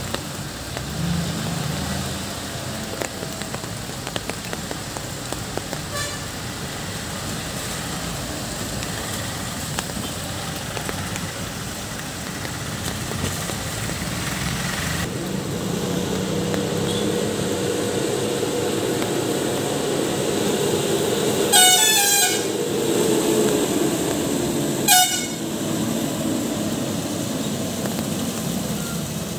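Road traffic climbing through a hairpin bend on a wet road: engines running steadily and tyres hissing on the wet tarmac. A vehicle horn sounds twice, a longer blast about 21 seconds in and a short toot about three seconds later.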